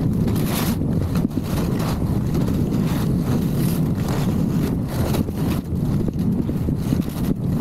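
Wind buffeting a helmet camera's microphone in a steady low rumble while skiing downhill at speed, with the hiss and scrape of skis on packed snow.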